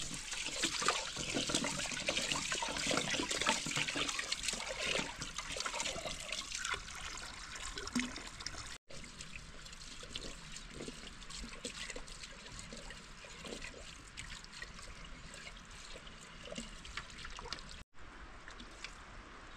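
Water running and splashing, loud for the first half. After a brief break the sound goes on quieter, with scattered small knocks, and it breaks off once more near the end.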